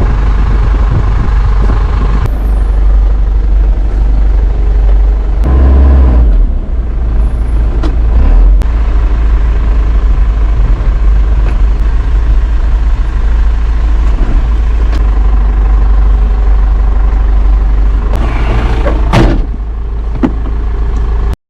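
A large engine running loudly and steadily, with a deep rumble. It surges louder about six seconds in, and there is a sharp knock near the end.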